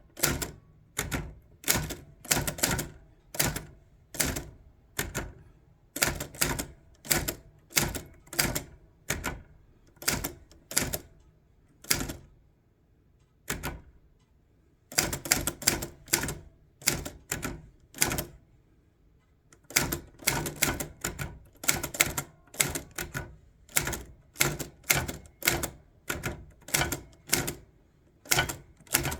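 Manual portable typewriter typed slowly with one finger: separate key strikes about two or three a second, with a pause of a couple of seconds about halfway through.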